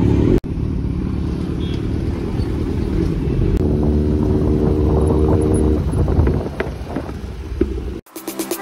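Kawasaki Z900's inline-four engine through an aftermarket SC-Project full exhaust, running as the bike rides along, holding a steady note for about two seconds in the middle. It cuts off sharply near the end, where electronic dance music begins.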